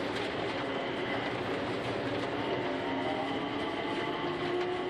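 Mitsubishi Crystal Mover people-mover car running along its guideway on rubber tyres, heard from inside the car: a steady rolling noise with faint whining tones that shift slightly in pitch.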